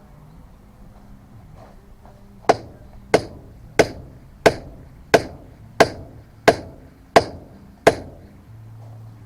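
Nine sharp, evenly paced striking blows, about one every two-thirds of a second, each ringing briefly.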